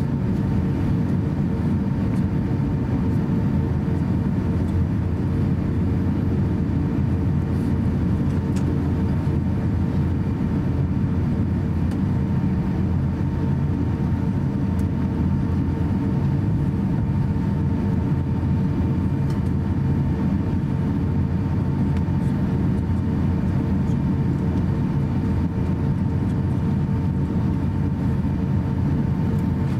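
Cabin sound of an Airbus A350-900 taxiing, its Rolls-Royce Trent XWB engines at idle: a steady low rumble with a steady hum.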